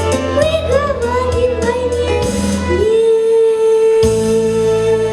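A voice singing a melody with vibrato over an instrumental backing track, then holding one long note from about three seconds in.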